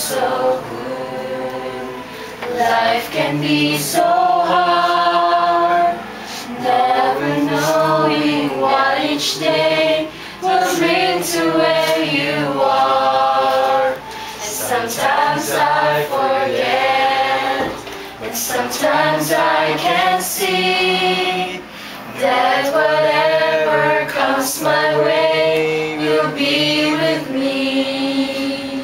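A small group of young women singing together in unison, in phrases of held notes with short breaks between the lines.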